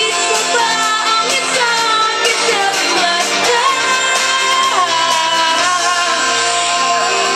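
A woman singing live into a handheld microphone over amplified pop-rock backing music, her melody rising and falling over a steady accompaniment.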